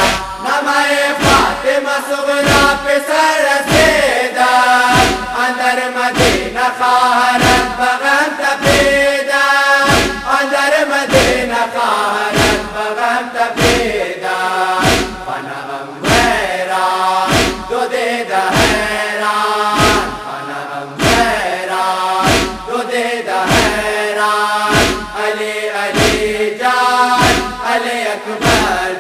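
Male chorus chanting a Persian noha (Shia lament) in unison over deep, regular thumps about once a second, the beat of matam chest-striking.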